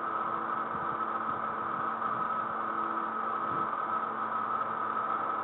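Steady background hiss with a faint low hum and no distinct events, heard through the narrow audio of an online video call.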